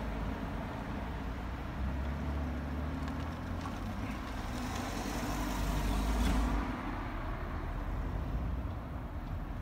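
Road traffic in the street: a steady low rumble, with a vehicle passing and swelling loudest about five to six seconds in before fading.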